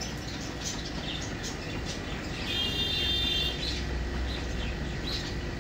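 Small birds chirping in short, scattered calls, with one longer, higher call held for about a second near the middle, over a low background rumble.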